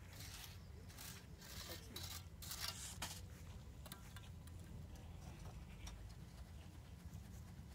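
Shovel scraping and scooping through wet concrete mix in a few short strokes during the first three seconds, then fainter scattered ticks.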